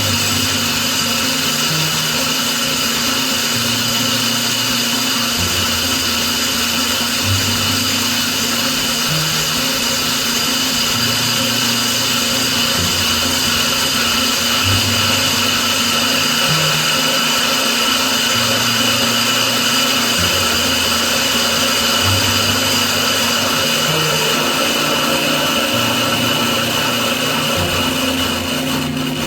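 An electric power tool's motor running steadily with a high whine, over background music with a moving bass line.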